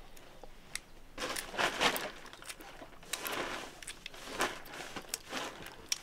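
Boiled egg shells cracking and being peeled off by hand: a series of short, irregular crackling and scraping bursts, the loudest about a second in.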